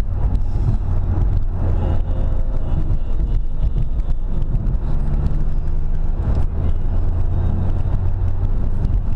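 Car engine running with tyre and road noise, heard from inside the cabin as the car drives along at a steady pace.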